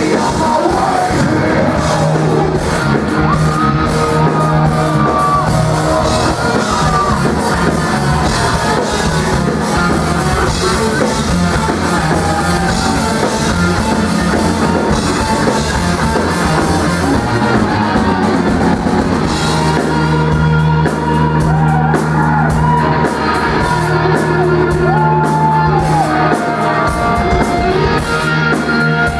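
Live rock band playing loud, with distorted guitars, a drum kit and a singer, heard in a large room; the playing thins out in the last ten seconds or so.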